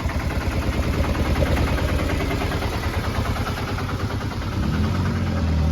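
Motorcycle engine running close by, growing a little louder with a low hum near the end.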